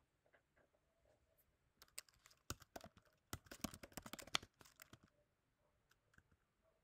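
Faint typing on a computer keyboard: a quick, uneven run of key clicks that starts about two seconds in and stops about five seconds in.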